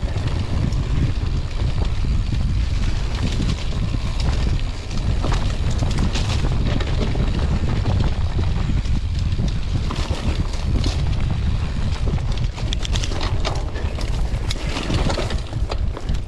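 Steady wind rumble on the camera microphone as a mountain bike rolls fast down a dirt singletrack, with scattered clicks and clatter from the bike over rough ground.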